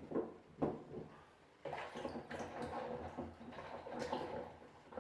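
Potatoes being handled and set out on a surface: a single knock about half a second in, then a few seconds of continuous rubbing and shuffling.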